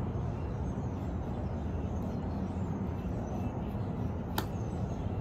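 Steady low outdoor background rumble, with one sharp click about four seconds in.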